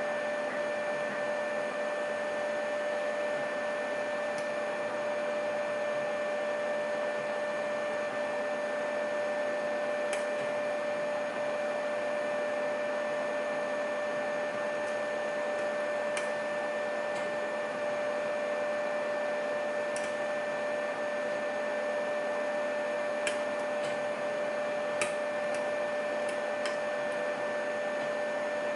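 A steady background hum with a clear held tone, unchanged throughout. A few faint, sharp clicks of a lock pick working the pins of a pin-tumbler lock come now and then over it.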